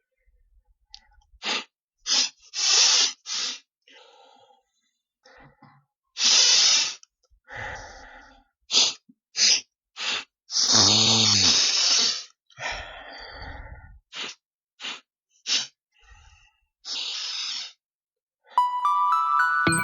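A person sniffing repeatedly through the nose: short, irregular sniffs with a few longer drawn ones between.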